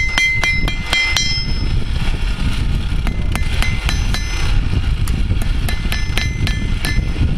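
Hammer blows on steel at a blacksmith's anvil. The strikes ring clearly, about half a dozen in quick succession at first and then in shorter spaced groups, over a steady low rumble.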